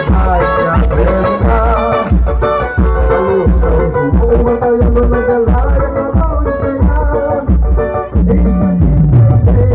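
Loud festive bumba-meu-boi music for a boizinho dance, with a steady low drum beat about twice a second under a melody line.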